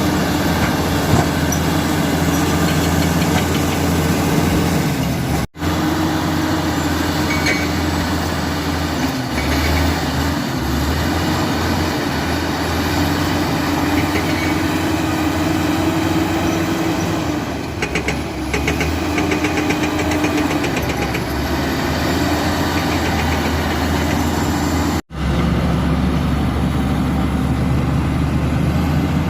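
Komatsu D85E-SS bulldozer's diesel engine running steadily, with a stretch of rapid clattering about two-thirds of the way through. The sound breaks off for an instant twice.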